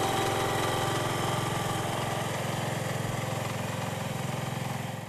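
The 12-horsepower engine of a 1970 John Deere 120 hydrostatic garden tractor running steadily, a small engine's even, rapid firing.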